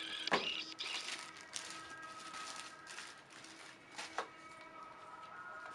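Rustling and scattered light clicks from handling the jigsaw's packaging and parts.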